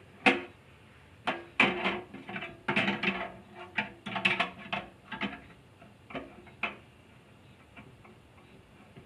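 Clicks and knocks of the 852D rework station's hot-air handpiece being handled and fitted against its holder bracket on the case, a quick irregular run of sharp taps that stops about two-thirds of the way through.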